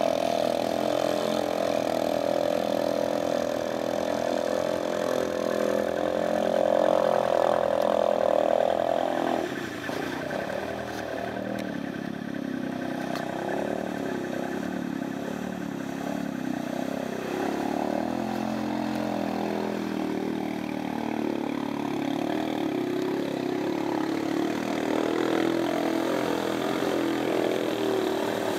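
ATV engines working hard through deep mud and water. For the first nine seconds or so the engine is held at high revs in a steady drone. It then drops off abruptly, and after that the engine runs lower and unevenly, with the revs rising and falling.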